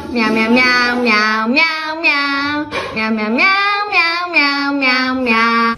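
A high voice singing a melody of held notes that slide from pitch to pitch, with short breaks between phrases and no clear words.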